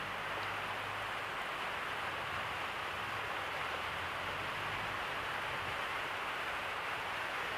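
Steady background hiss of recording noise, with a faint low hum in the first half.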